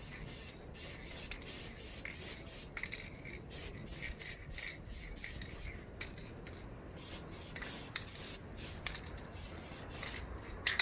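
Duplicolor Perfect Match aerosol spray-paint can hissing in a series of short passes with brief gaps, laying down a light coat of base colour.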